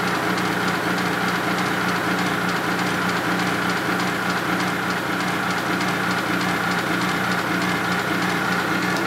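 Milling machine running steadily with a steady whine over a low, evenly pulsing hum, spinning the cutter used to sweep the combustion chamber of a Harley panhead cylinder head.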